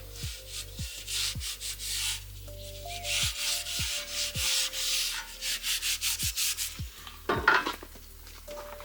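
A cloth rubbing linseed oil into a wooden shovel handle in quick back-and-forth strokes, in two runs with a pause between them. Soft background music runs underneath.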